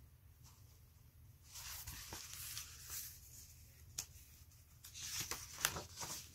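Pages of a picture book being turned and handled: soft paper rustles about one and a half seconds in and again near the end, with a few light taps between.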